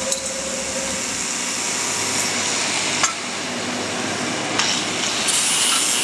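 Steady mechanical noise of machinery running, with a low rhythmic pulsing that fades out about a second in and a few light metallic clinks. A higher steady whine comes in near the end.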